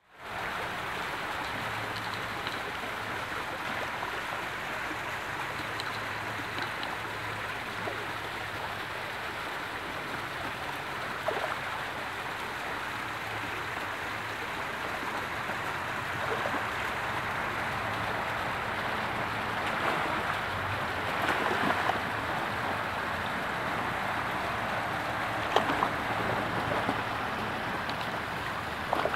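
Steady rush of running water, with a steady low hum underneath and a few short sharp sounds, one about eleven seconds in and a couple more in the second half.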